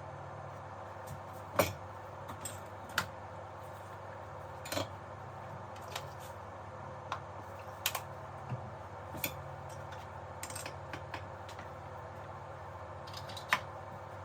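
Irregular sharp clicks and taps of small hand tools and parts handled on an electronics workbench while a replacement Zener diode is fitted to the amplifier's circuit board, over a steady background hiss and hum.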